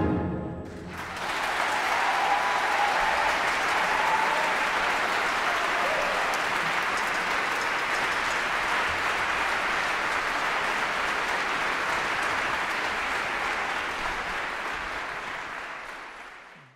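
Audience applauding in a concert hall, the big band's last chord dying away just before. The clapping starts about a second in, holds steady, and fades out near the end.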